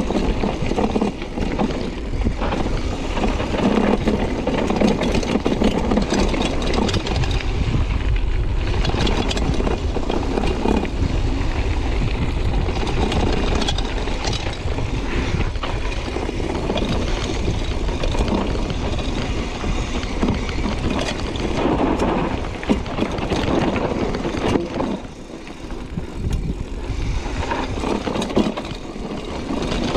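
Mountain bike riding down a rough trail, heard from on board: a steady rumble and hiss of rushing air and tyres, with many small clacks and rattles as the bike runs over bumps. It eases briefly about five seconds before the end.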